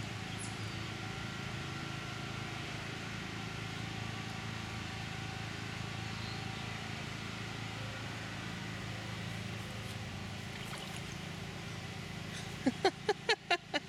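Steady low motor hum in the background. Near the end comes a quick run of about six loud squeaks, as a wet toddler's skin rubs against the vinyl of an inflatable pool toy.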